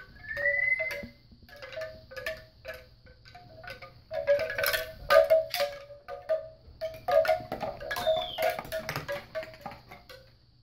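Bamboo wind chime clattering as a Labrador puppy bats and mouths it: irregular hollow wooden clacks of the tubes knocking together, dying away near the end.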